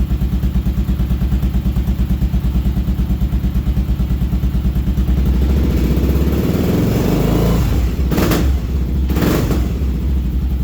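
Kawasaki KLR motorcycle's single-cylinder engine idling with an even pulse, then revved up about halfway through, with two quick blips of the throttle before settling back to idle. It idles and revs cleanly after a carburettor clean and the pilot screw being set to 2.5 turns.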